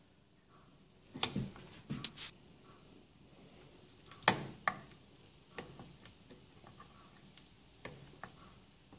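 Light, scattered clicks and ticks of a small tool prying at the metal bezel of an old Starrett dial indicator held in a vise. A few clicks are sharper than the rest, the loudest about four seconds in.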